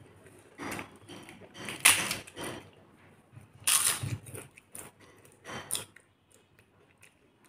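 Crisp papad crunching as it is bitten and chewed, four loud crunches spaced a second or two apart.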